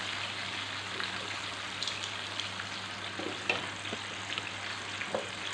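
Chicken pieces and sauce sizzling and bubbling steadily in a frying pan, with a few light clicks scattered through.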